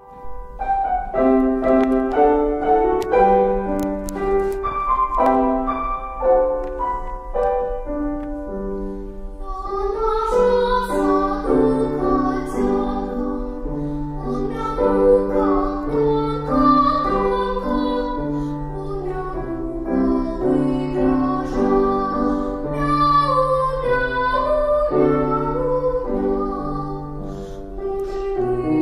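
An instrumental introduction of steady melodic notes, then a young girl's voice comes in about ten seconds in, singing a children's song over the accompaniment.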